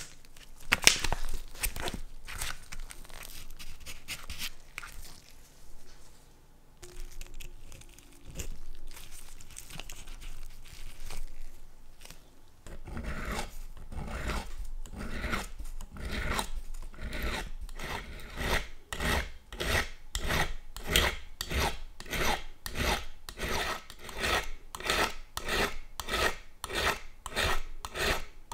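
Hand files rasping back and forth across a chrome-plated watch case, grinding off the old chrome. The strokes are uneven at first, then settle into a steady rhythm of about two strokes a second in the second half.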